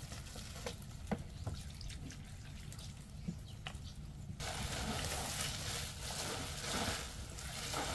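Plum syrup trickling from a plastic bottle onto wild chives in a plastic basin. From about halfway, a steady rustle of a gloved hand tossing the greens to mix in the seasoning.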